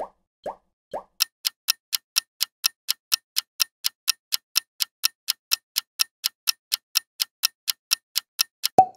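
Countdown-timer clock ticking sound effect: rapid even ticks, about four a second. The ticks start about a second in, after three soft pops, and stop with a short thump just before the end.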